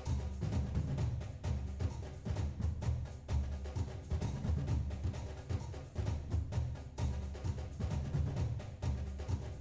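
Background music with drums and a steady beat over a heavy bass line.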